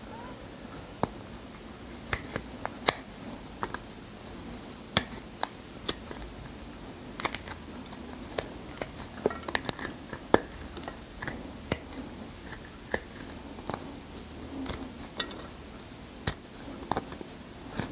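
Fresh lime being peeled by hand close to the microphone: the rind tears and snaps under the fingers in irregular sharp clicks, several a second.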